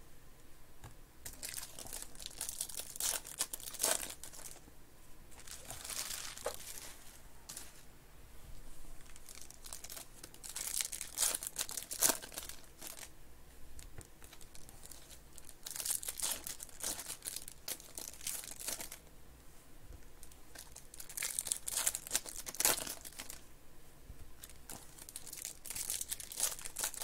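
Foil trading-card pack wrappers being torn open and crinkled by hand, in bursts every few seconds, with cards handled between them.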